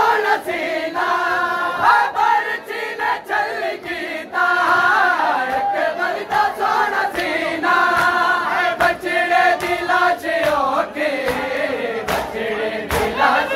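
A group of men chanting a Punjabi noha (a mourning lament) loudly in unison. Sharp slaps of chest-beating (matam) come repeatedly through the singing.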